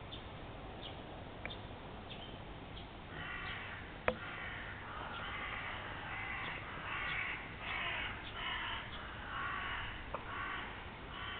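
Crows cawing over and over, a long run of harsh calls starting about three seconds in. A single sharp click comes just after four seconds.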